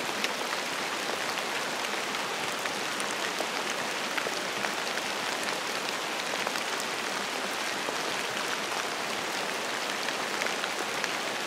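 Steady rain falling, a constant hiss with many small drop ticks.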